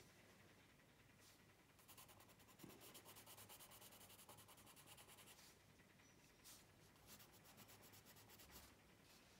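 Faint scratching of a coloured pencil shading on a colouring-book page in quick, even back-and-forth strokes. The strokes start about two seconds in, pause briefly past the middle, then resume before stopping near the end.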